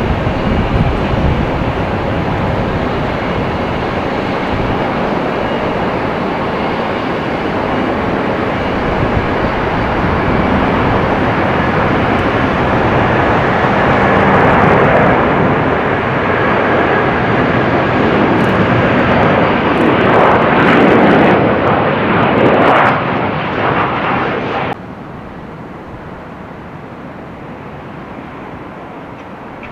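Airplane engine noise, a loud steady rush that grows slightly louder, then cuts off suddenly to a much quieter rumble about 25 seconds in.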